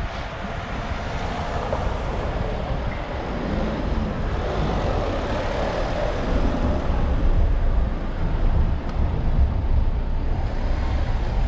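Steady city traffic noise: cars and vans idling and creeping in a queue close by, with a low rumble throughout.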